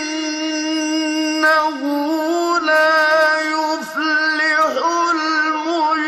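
A man's high, ringing voice chanting melodic Quran recitation, drawing out long held notes with wavering ornamental turns and brief breaths between phrases.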